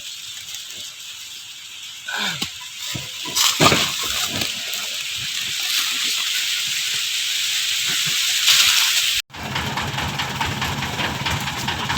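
A steady rushing hiss that grows louder about two seconds in, with a few knocks. It breaks off suddenly near the end, and an engine takes over, running with a low hum and a fast, even ticking.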